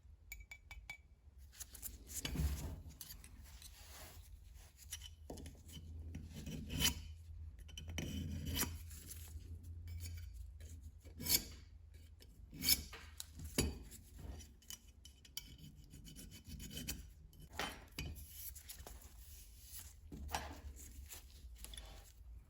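Irregular hand-abrading strokes rubbing over brass tool parts, broken by a few sharp clicks and taps about halfway through.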